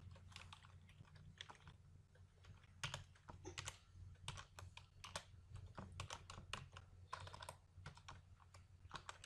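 Faint typing on a computer keyboard: irregular keystrokes in quick runs and pauses, over a steady low hum.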